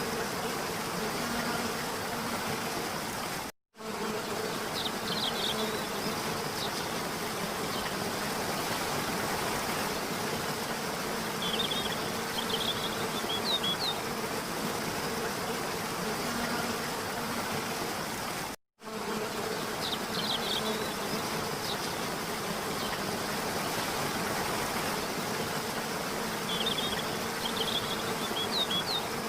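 Steady noise of a waterfall, with a faint hum and small clusters of high chirps every several seconds. The sound cuts out for an instant twice, about fifteen seconds apart.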